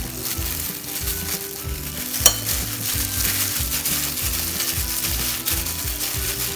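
Crinkling of plastic food gloves and squishing of raw ground-pork mixture as it is scooped and rolled into balls, over background music with a steady bass line; one sharp click a little over two seconds in.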